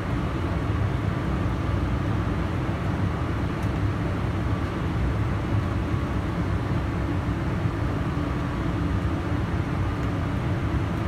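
Steady flight-deck noise of a Boeing 787 on short final approach: a low, even rumble of airflow and engines with no sudden events.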